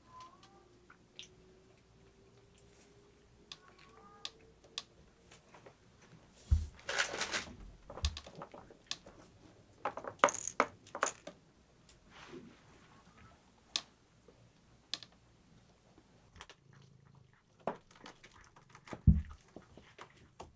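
Cats moving about a room: scattered knocks, taps and scuffles against the floor and toys, with a louder thump-and-rustle about seven seconds in and another about ten seconds in. A couple of brief faint mews come near the start and about four seconds in.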